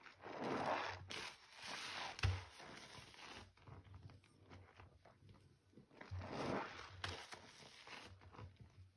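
A gloved hand swishing and sloshing through foamy water and wet powder, in surges of splashing that come about a second in and again about six seconds in, with one sharp tap against the container a little after two seconds.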